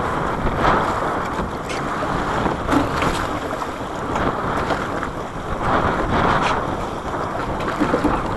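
Wind buffeting the microphone and sea noise aboard a charter boat in choppy water, rising and falling, with scattered small knocks.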